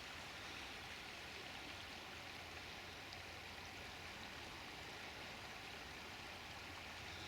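Faint, steady rushing of the River Swale in flood, swollen high over its banks.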